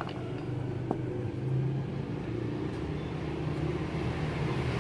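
A vehicle engine running steadily in the background, a low hum that grows louder near the end, with a single light click about a second in.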